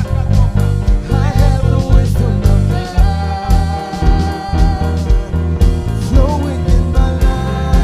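Live worship music with a steady beat: bass, drums and guitar, with a voice singing a wavering melody in places.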